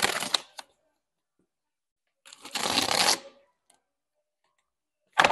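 A cardboard shipping box being opened: packing tape torn and cardboard rubbed in three short noisy rips, each about a second long and spaced about two and a half seconds apart.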